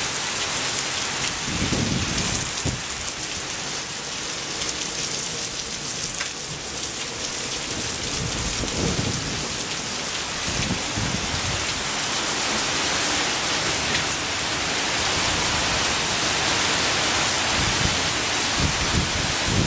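Heavy rain pouring steadily in a thunderstorm, with several low rumbles of thunder, the last near the end.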